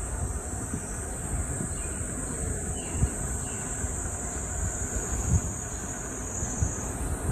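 Wind rumbling and buffeting on the phone microphone while riding an electric unicycle, with a steady high-pitched buzz throughout that dips slightly in pitch near the end.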